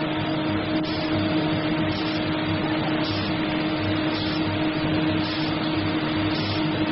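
Tube-filling machine running on a production line: a steady mechanical hum and whir with a regular low pulsing.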